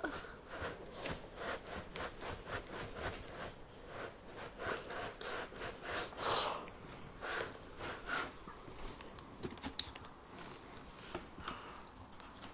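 A large boxed 3D printer being unpacked: cardboard and packing material scraped, rubbed and rustled in irregular strokes, with a few sharp clicks.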